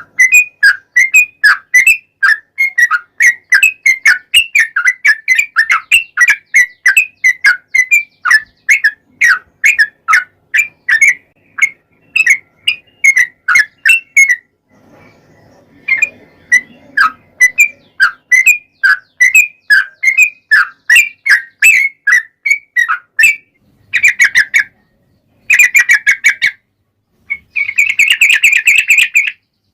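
Yellow-vented bulbul singing a long, fast run of chattering notes, about three to four a second. The run breaks off briefly about halfway, then comes back and ends in denser, buzzier bursts of song.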